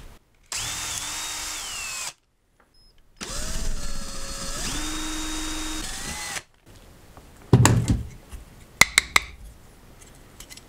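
Handheld power drill boring a hole through a hard plastic charger case, running in two bursts of about one and a half and three seconds with a motor whine that dips under load. Several sharp knocks and clicks of the plastic case being handled follow a second or two later.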